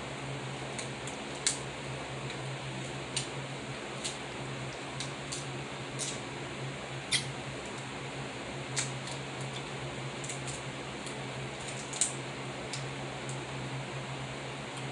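Snow crab legs being eaten: a dozen or so short, sharp clicks and snaps from the shells and from chewing and sucking, at irregular intervals, over a steady low hum.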